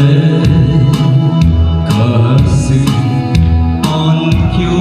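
A man singing a Korean trot song into a microphone over accompaniment with a steady drum beat.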